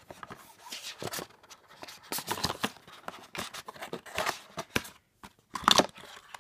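Card advent-calendar box being opened and handled: card scraping and rustling, with crinkling and small clicks. The loudest rustle comes near the end.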